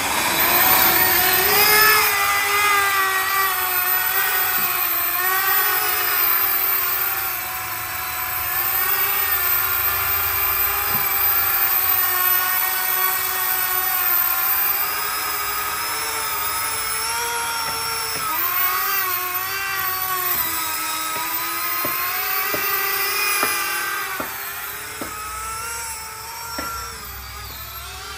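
Four 70 mm electric ducted fans on a 3D-printed drone spooling up from rest, then a high whine whose pitch wavers up and down with the throttle during an acceleration run. It grows fainter near the end as the drone flies away.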